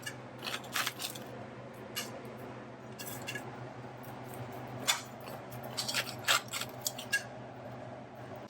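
Kitchen handling noises: scattered light clicks and taps over a steady low hum.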